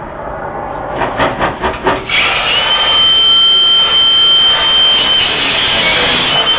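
Angle grinder cutting into a metal vending-machine lock: a few short spurts about a second in, then running steadily from about two seconds in with a high whine whose pitch dips briefly as it bites.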